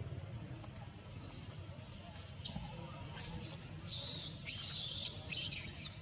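High-pitched animal calls: a thin steady whistle near the start, then a run of short arched chirps and squeaks from about two seconds in, loudest near the end.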